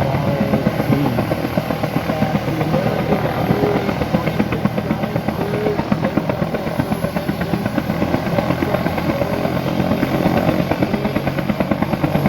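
Bell UH-1 Huey helicopter running, its rotor beating in a rapid, steady rhythm over a constant engine drone.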